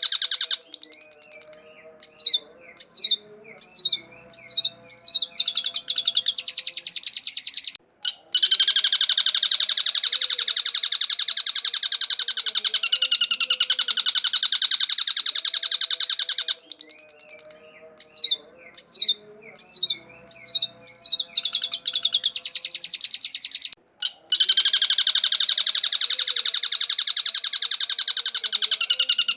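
Long-tailed shrike singing: long stretches of rapid, harsh chattering trills alternate with runs of short separate notes, and the same passage repeats about every sixteen seconds. It is a looped recording played to lure shrikes.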